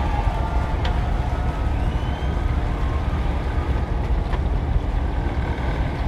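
Sport-fishing boat's engines running with a steady low rumble, mixed with wind buffeting the microphone.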